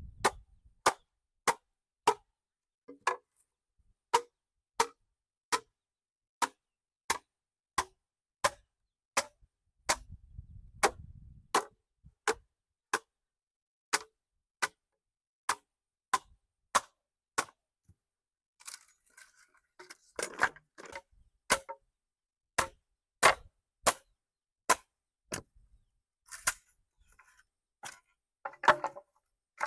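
Sharp knocks repeated at a steady pace, about three every two seconds, with some rustling or scraping between them about two-thirds of the way in and near the end.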